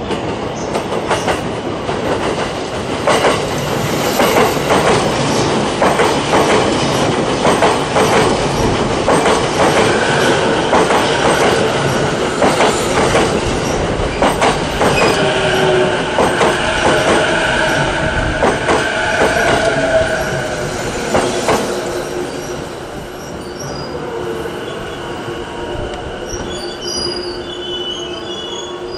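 JR East E233-series electric commuter train pulling into the platform. Its wheels clack over points and rail joints, then squeal as it brakes, and it quietens as it comes to a stop in the last few seconds.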